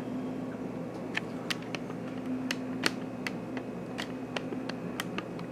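Scattered light clicks and taps of a video camera being handled and adjusted, about two a second at irregular intervals, over a steady low hum.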